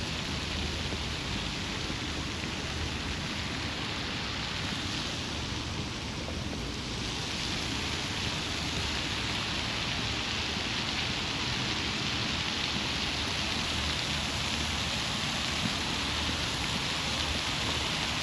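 Ground-level fountain jets splashing onto stone paving: a steady hiss of falling water that grows louder about seven seconds in.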